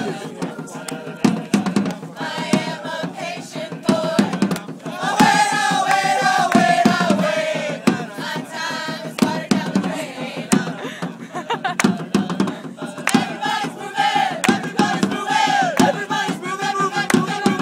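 Punk rock choir singing together, several voices holding and gliding between notes, with frequent sharp percussive hits under the singing.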